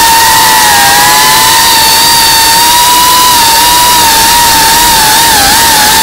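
Geprc Cinelog35 FPV quadcopter's brushless motors and propellers heard from the onboard camera: a loud, high whine over a heavy rush of wind and prop wash. The pitch dips slightly about a second in and wavers up and down with throttle from about five seconds in.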